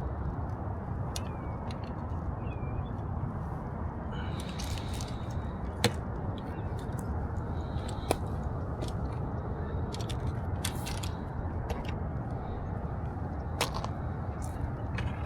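Litter being handled on a river bank: sharp clicks and short crinkling rustles, several times, over a steady low rushing noise.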